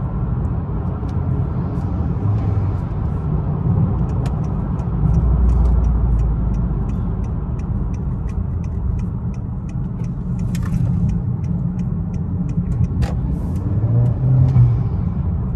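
Honda Accord's 1.5-litre turbocharged four-cylinder engine, fitted with an AEM cold air intake, running under way, heard from inside the cabin as a steady low rumble with road noise. A deeper drone swells about five to seven seconds in.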